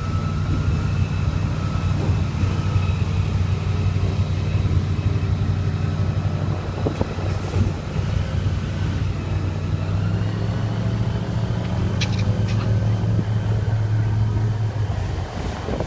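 Airboat engine running steadily at low speed, a low drone that shifts slightly in pitch about ten seconds in.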